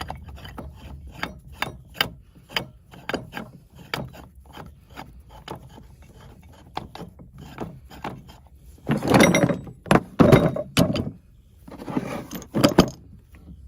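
Hand-tool work on machinery: a string of sharp, irregular clicks or knocks about two a second, then a few louder, longer rasping bursts about nine and twelve seconds in.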